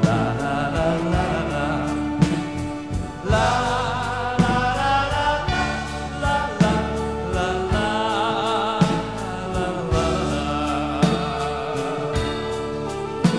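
Male lead vocal singing a slow song live with a wide vibrato, backed by a band of guitars, keyboards, bass and drums. A heavy drum hit lands about every two seconds.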